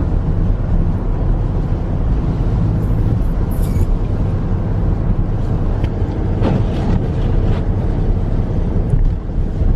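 Dodge Durango R/T's HEMI V8 running under load with steady road noise at freeway speed on a snow-covered road, as the SUV accelerates to pass.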